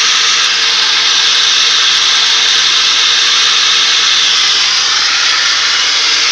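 Car engine running with a steady hissing hum that comes from the rear crankshaft oil seal, with a faint steady tone underneath.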